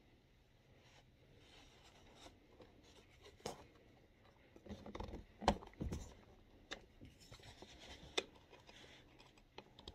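Flathead screwdriver working the plastic release tabs of a Dometic 310 toilet's flush valve assembly: faint, scattered plastic clicks and short scrapes as the valve body is pried and rocked loose. The first few seconds are nearly silent.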